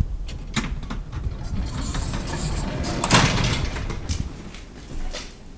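1967 Flohr-Otis traction elevator in operation: several sharp mechanical clunks and clicks, and a sliding rush that builds to a loud peak about three seconds in, then fades.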